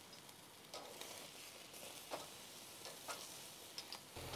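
Faint steady sizzling of a beef steak searing on the hot infrared Sizzle Zone burner of a Napoleon gas grill, with a few scattered pops of fat.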